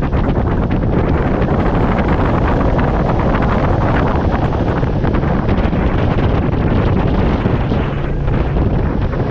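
Steady wind buffeting the action camera's microphone on a boat running at speed, with the boat's Mercury 60 hp outboard and rushing water underneath.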